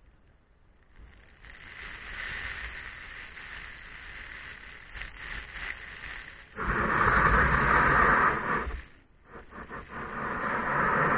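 Wind rushing over the microphone with water noise as the kite drags the kayak along. It grows from faint to steady, turns much louder about six and a half seconds in, cuts out briefly near nine seconds, and comes back loud.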